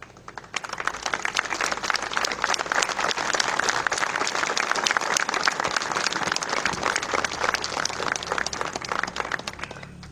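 Audience applauding, many hands clapping together; it starts about half a second in and dies away near the end.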